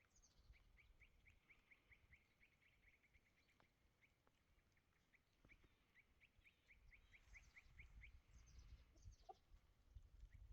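Faint bird calls: runs of short, high chirps repeated several times a second, with a pause in the middle and a few higher calls near the end.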